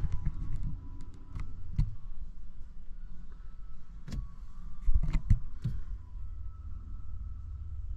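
Steady low rumble of a car, with a handful of sharp clicks and knocks, the loudest about five seconds in.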